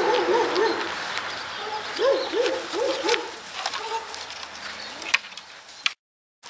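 A dog yipping in play, giving short rising-and-falling yips in quick runs: a run at the start and four more about two to three seconds in. Near the end come a couple of sharp knocks, then the sound cuts out for a moment.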